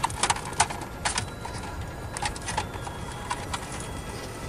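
A scattered series of sharp plastic clicks and snaps as the retaining tabs of a dashboard bezel are released and the climate control vent assembly is worked loose by hand.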